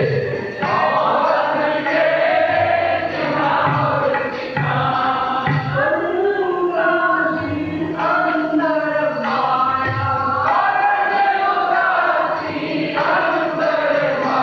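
Sikh kirtan: men singing a devotional hymn in a chant-like melody, accompanied by harmonium and tabla drums that play steady low strokes.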